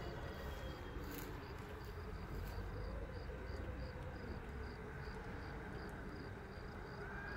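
A cricket chirping steadily, a short high chirp about three times a second, over a faint low background rumble.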